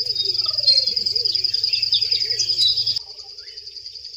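Natural bush ambience: birds chirping over a steady, rapidly pulsing high insect trill, with a low wavering call repeated every half second or so. The whole sound drops in level about three seconds in.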